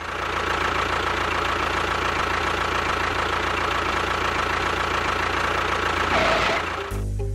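A motor running steadily, with a rough rattly texture and a steady high whine. It cuts off abruptly near the end.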